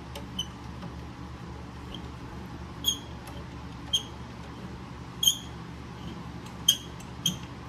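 Electric fan running with a steady hum, with about six short, high-pitched clinks scattered through as bolts are worked into a metal bracket.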